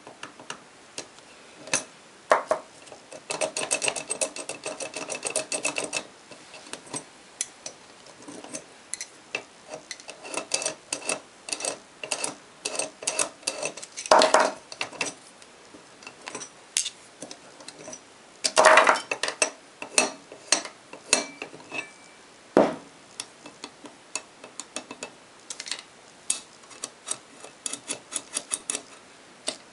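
Metal clicking and clattering from a worn, spring-damped clutch basket being worked by hand: its coil springs are pulled out and the worn hub knocks about against the loose inner plate and the alloy stops. The clicks come at irregular times, with a dense rattle a few seconds in and the loudest knocks about halfway through and again a few seconds later.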